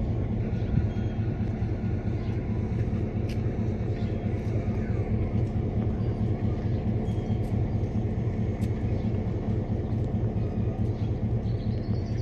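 Diesel locomotive engine idling: a steady low rumble that holds the same pitch throughout. A short high chirp comes near the end.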